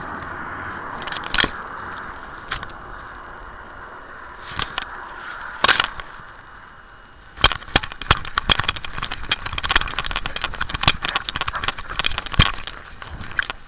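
Rubbing and knocking on a camera worn by a dog: a fading hiss with a few sharp clicks, then from about seven seconds in a dense run of clicks and rattles as the dog moves about.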